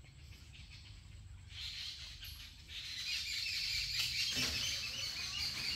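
Small birds chirping and twittering, starting about a second and a half in and growing busier from about three seconds, over a low steady rumble.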